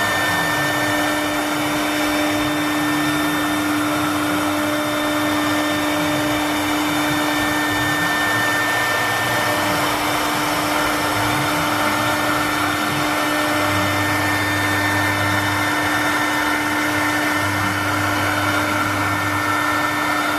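CNC wood router running: its electric spindle gives a steady high whine over a hiss, while lower motor tones glide up and down underneath.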